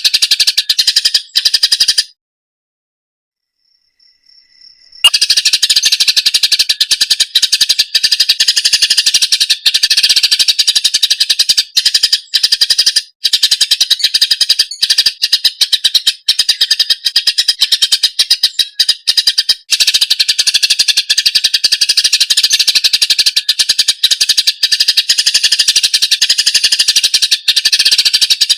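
Greater green leafbird (cucak ijo) song: a dense, fast, unbroken stream of chirps and trills. It cuts out for about three seconds near the start and then starts again abruptly.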